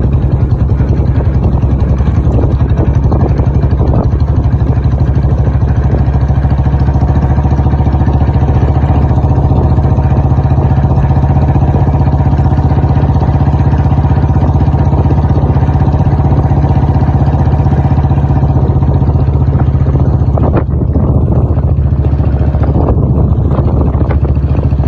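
Royal Enfield Bullet 350's single-cylinder four-stroke engine running steadily at an even speed, with its exhaust thumping in a fast, regular beat. There is a brief dip about twenty seconds in.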